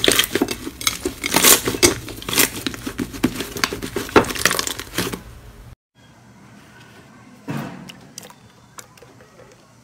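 Thick black glitter slime kneaded and squeezed by hand in a glass bowl, giving a dense run of crackling pops and clicks. About six seconds in it cuts off abruptly, and quieter pressing of a soft blue jelly slime follows, with one louder squish about a second and a half later.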